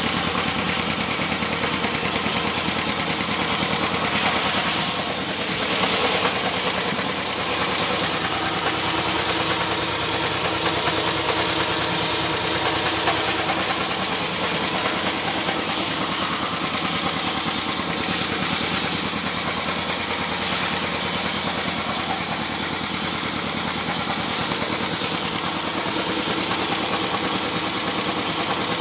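Belt-driven piston air compressor running steadily, its pump giving a fast, even chugging under a constant hiss.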